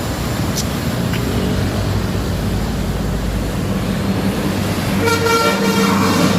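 Diesel bus engine running with a steady low rumble, then about five seconds in the bus's telolet basuri horn starts playing a tune in bright, pitched tones.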